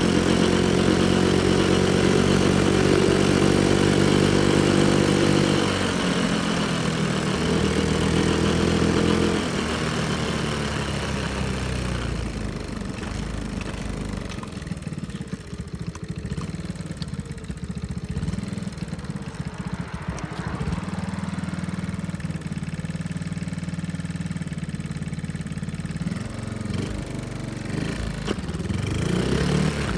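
Honda Monkey mini bike's small four-stroke single-cylinder engine running as the bike is ridden, its pitch shifting with the throttle for the first several seconds. It then drops to a quieter, steady idle for about fifteen seconds and revs up again near the end. The engine is running after a valve adjustment.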